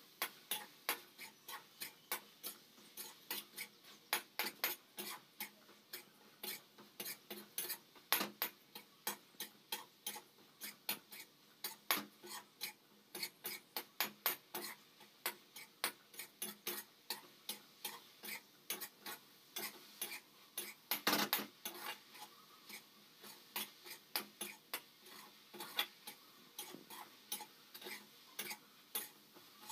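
Steel spoon stirring a crumbly khees (colostrum curd) mixture in a metal kadhai, knocking and scraping against the pan as it is roasted: irregular sharp clicks, a few a second, with a louder flurry about two-thirds of the way through.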